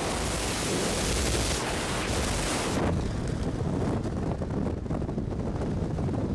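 Wind buffeting the camera microphone during a tandem skydive: a loud, even rush of air, bright and hissing in freefall, turning duller about three seconds in, once under the open parachute canopy.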